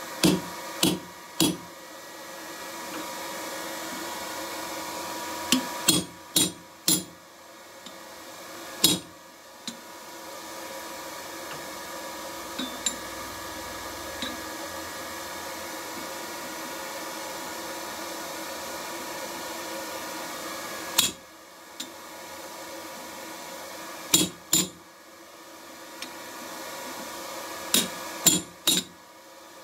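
Hammer blows on a hand punch driving a rivet hole through hot steel tong bosses on an anvil. The blows come as sharp metallic strikes in groups of two or three, with pauses of several seconds between groups, over a steady background hum.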